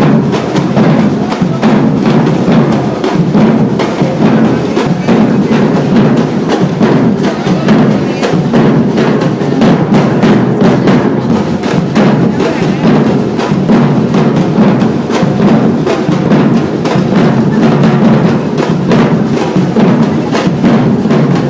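Percussion ensemble drumming together at full volume: deep bass drums under a dense, steady stream of sharp strikes and wood-block-like clicks, without a pause.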